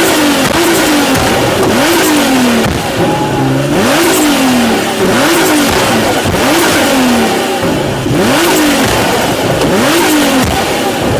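Nissan GT-R R35's twin-turbo 3.8-litre V6, tuned to Stage 4.25 with a flame tune, revved in quick throttle blips about once a second. Each rev rises sharply and falls back, with sharp pops near several of the blips.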